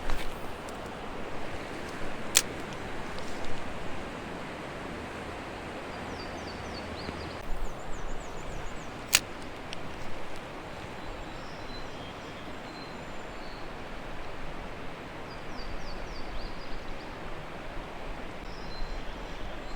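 Steady rush of flowing creek water, with a few short high bird chirps and two sharp clicks.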